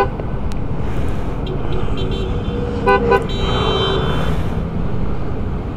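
Engine and road noise from riding a small motor scooter in traffic, with two quick horn toots about three seconds in, followed by a brief high whine.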